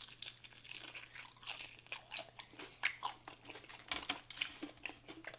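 Close-miked chewing and crunching of fried chicken: irregular crackly bites and mouth sounds, with a faint steady hum underneath.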